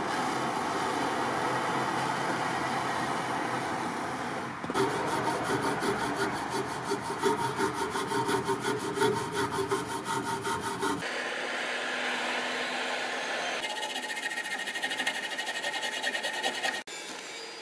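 Handheld gas torch hissing steadily as it heats an iron horseshoe, then a brass wire brush scrubbed in quick back-and-forth strokes over the hot iron, rubbing brass onto it to give it a golden coat.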